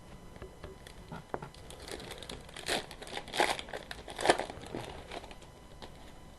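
Trading card pack wrapper crinkling as it is torn open and handled, in a few irregular rustling bursts about halfway through.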